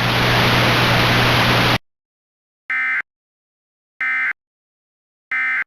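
Loud hiss of broadcast static that cuts off abruptly about two seconds in, then three short, identical warbling data bursts of an Emergency Alert System end-of-message code, about a second and a half apart, marking the end of the alert.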